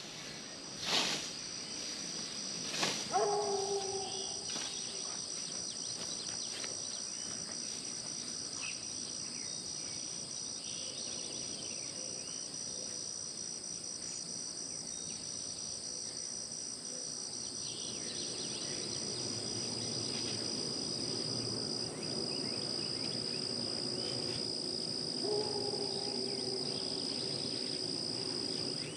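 Steady chorus of crickets and other insects, a continuous high ringing drone. A few sharp knocks sound in the first three seconds, and a short lower-pitched animal call is heard about three seconds in and again near the end.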